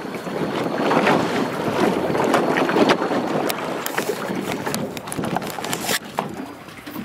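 Small waves slapping and lapping against the fiberglass hull of a Robalo R200 center-console boat sitting on open water, with many short irregular splashes, while wind buffets the microphone.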